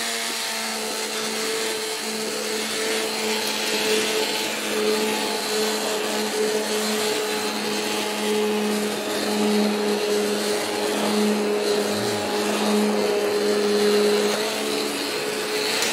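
Hand-held immersion blender running steadily with its blade down in a pot of green purée: a constant motor hum over the whir of the churning liquid, shifting slightly in pitch near the end.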